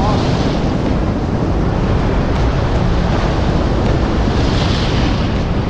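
Wind buffeting the microphone over waves breaking and washing against the rocks of a jetty, a steady loud rush with a hissing surge about four and a half seconds in.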